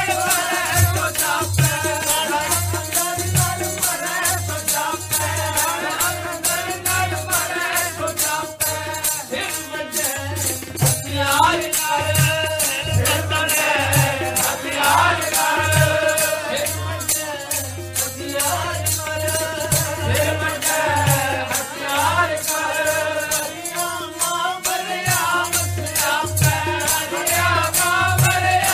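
Sikh devotional hymn (kirtan) sung by a male voice over a steady beat of low drum strokes and a continuous rhythmic rattle.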